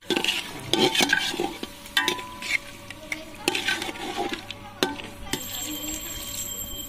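Metal spatula stirring chicken curry in an aluminium pot, scraping and knocking against the pot's sides, with the sauce sizzling. Irregular scrapes give way to a steadier hiss after about five seconds.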